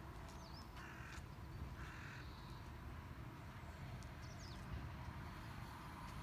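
A crow cawing twice, two short harsh calls about a second apart near the start, with a couple of faint high bird chirps over a low outdoor background.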